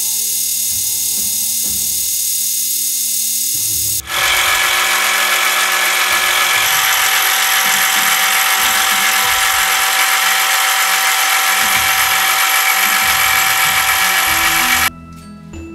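Milling machine with an end mill taking light passes to cut the flats of a steel half-octagon rifle barrel: a steady, loud, high cutting whine and hiss. It gets louder and fuller after an edit about four seconds in and stops abruptly near the end, with soft background music underneath.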